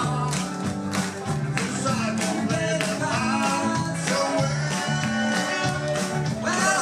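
Live band playing an upbeat rock song with a singer over a steady beat.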